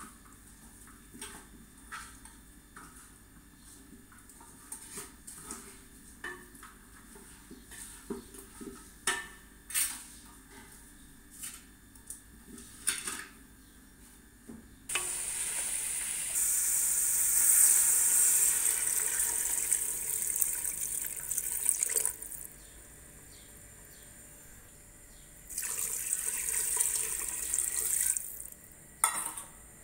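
A wooden spoon knocks and scrapes in a metal pot for about the first half. Then a tap runs steadily for about seven seconds. After a pause, water is poured from a saucepan into the pot of meat for a couple of seconds, and a metal clink comes near the end.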